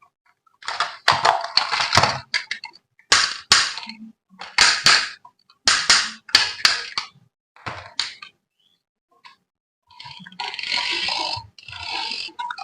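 Several short bursts of clicking and clattering handling noise, with pauses between them, turning into a rougher, continuous scraping or rustling near the end.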